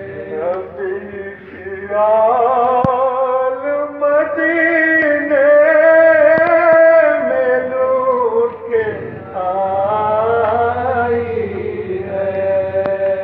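Male voices chanting a nauha, a Shia lament for Hussain, in long held melodic lines, with a few sharp slaps heard over it.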